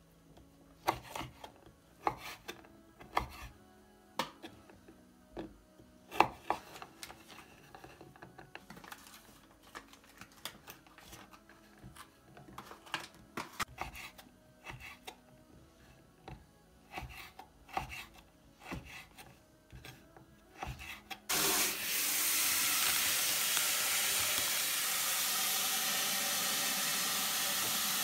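Kitchen knife cutting dried figs and dried apricots on a wooden cutting board: irregular sharp knocks of the blade through the fruit onto the board. About three-quarters of the way through, a steady rush of running water takes over and stops at the end.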